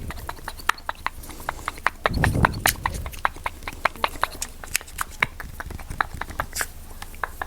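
Fast, irregular tapping clicks, several a second, from an ASMR tapping trigger, with a brief low rubbing rumble about two seconds in.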